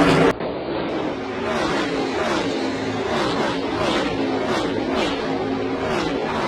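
NASCAR Next Gen V8 race cars passing in quick succession, engine notes falling in pitch as each one goes by, about two a second. An abrupt cut from a different steady engine sound comes just after the start.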